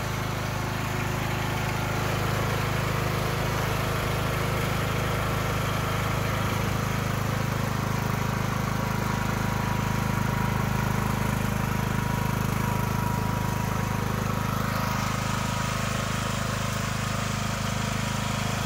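Yard Machines 14.5 HP riding lawn mower's engine running steadily as the mower is driven across the lawn.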